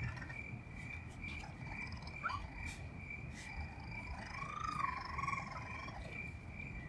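Baby raccoon kits crying: a short rising squeak a couple of seconds in, then a longer wavering whimper near the middle. A steady night insect trill runs underneath, with a few light clicks.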